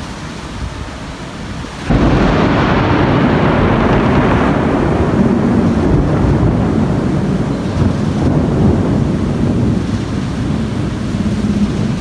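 Close thunder: a loud rumble starts suddenly about two seconds in and rolls on, slowly fading, over a steady rushing storm noise.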